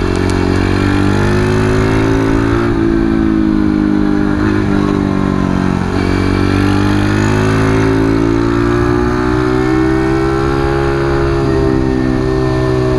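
Keeway RKS single-cylinder motorcycle engine running hard at high revs. Its pitch dips briefly a few times as the throttle eases for bends, then climbs again as the bike accelerates.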